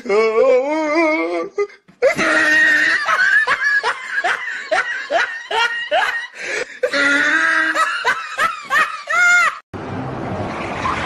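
Hearty laughter: first a laugh with a wavering pitch, then after a short break a long run of quick, rising 'ha' bursts. Near the end it cuts off abruptly to a steady rushing noise.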